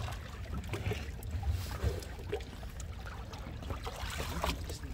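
Water splashing and lapping at the side of a small boat, where a whale shark's head breaks the surface against a man's outstretched arm, in short irregular splashes over a steady low rumble.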